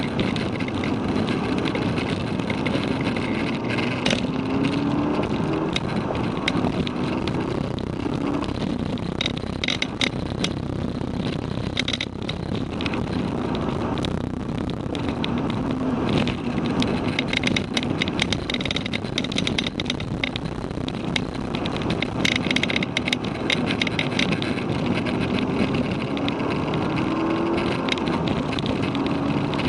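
Volkswagen Golf GTI Mk6's turbocharged 2.0-litre four-cylinder, on an APR Stage 1 tune, heard from inside the cabin under hard track driving. The engine note rises in pitch several times as it pulls through the revs, over steady road and wind noise.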